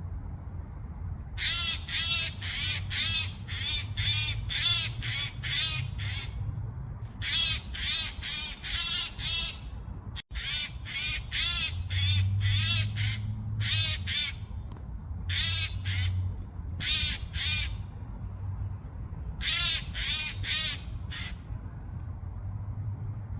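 Eurasian jay giving its harsh, rasping screech calls, repeated quickly in runs of several calls with short pauses between the runs.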